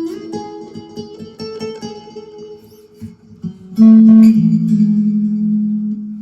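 Strat-type electric guitar played on a clean tone through a guitar amp: notes ringing out one after another, with a louder note struck about four seconds in and left to ring.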